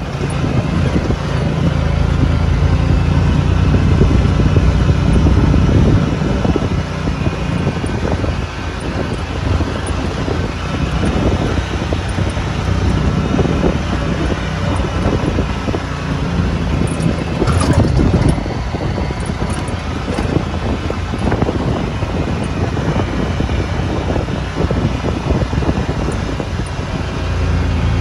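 Side-by-side UTV engine running under way on a dirt trail, heard from on board, mixed with tyre and wind noise; the engine note rises and falls as it drives.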